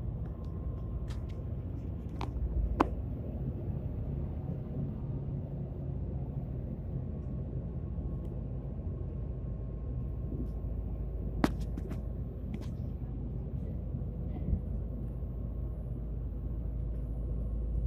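Steady low rumble of the ship's engines heard on deck while under way, with a few sharp clicks from the phone being handled, the loudest about halfway through.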